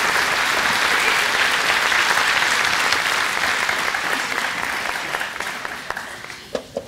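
Theatre audience applauding, the clapping dying away over the last couple of seconds.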